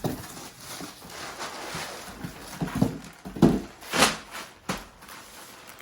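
Packaging being handled and opened by hand: a rustling, crinkling haze, then several sharp crackles and knocks a few seconds in.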